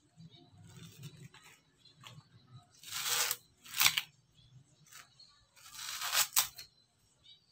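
Coconut husk fibre being torn off a sprouted coconut by hand: a few sharp ripping tears, the loudest about three, four and six seconds in, between quieter rustling of the fibres.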